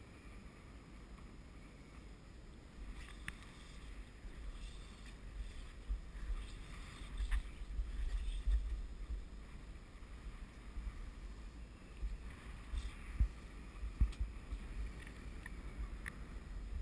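A small open boat drifting on choppy sea: a low, uneven rumble of wind on the microphone and water against the hull, with a few light knocks on the boat.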